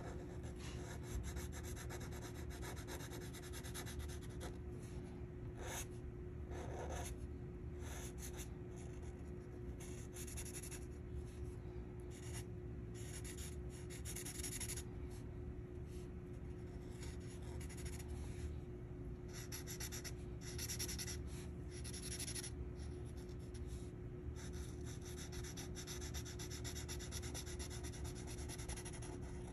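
Lime-green Sharpie felt-tip marker scratching across paper in quick colouring strokes, broken by brief pauses. A steady low hum runs underneath.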